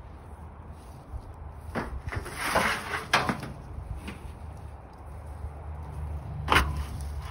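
A corrugated metal roofing sheet being picked up and carried, clattering and scraping in a cluster of knocks around two to three seconds in and giving one sharp clank near the end, over a low steady rumble.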